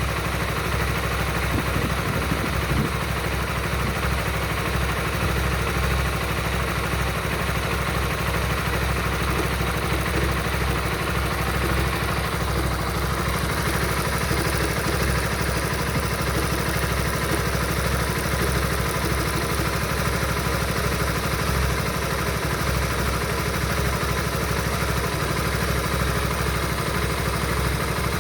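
Honda Supra GTR 150's single-cylinder engine idling steadily, making a noise the owner calls weird and cannot place.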